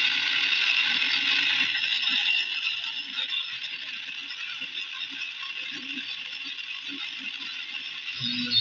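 Small DC-motor mini PCB drill running with a steady whine and light rattling, dropping in level after about two seconds. A low hum starts near the end.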